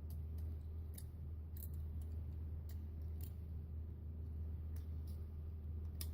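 Small, sharp clicks from handling the phone's plastic and metal parts during reassembly, a few scattered irregularly, over a steady low electrical hum.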